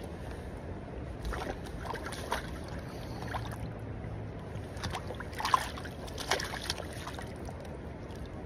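Steady rush of a shallow river, with a few sharp splashes and knocks between one and two and a half seconds in and a cluster of them between five and seven seconds in, the loudest about five and a half seconds in, as a stringer of steelhead is dipped into the water and lifted out again.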